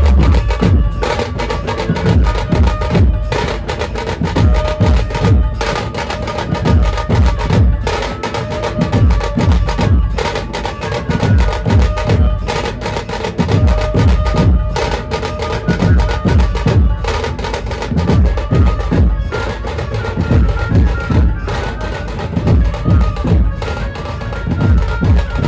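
Dhumal band music: heavy drums in a fast, steady beat under a held melody line, with a short break in the rhythm about every two seconds.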